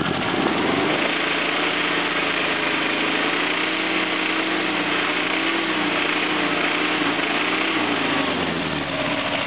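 Subaru 1800's 1.8-litre overhead-valve flat-four engine running on three cylinders, one spark plug lead disconnected, revved up in the first second, held at higher revs, then dropping back near the end. It runs rough and is slow to pick up, having only 75% of its power.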